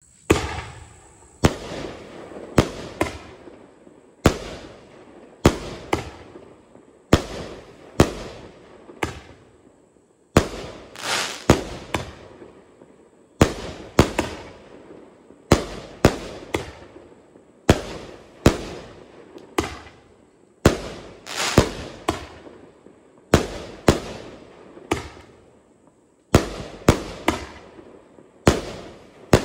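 Great Grizzly War Dogs 16-shot 500-gram fireworks cake firing: a rapid series of sharp bangs from its double-breaking shells, about one every second, each fading out with echo.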